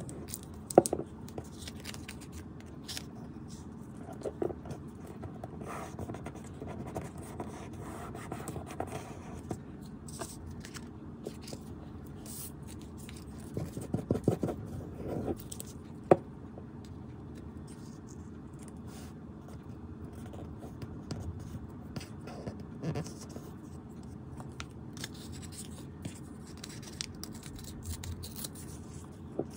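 Hands working paper scraps into a collage: soft rustling and scraping of paper as the tip of a white-glue bottle spreads glue and the pieces are pressed down. Small clicks and taps are scattered throughout, the sharpest about a second in and about sixteen seconds in, with a flurry around fourteen to fifteen seconds.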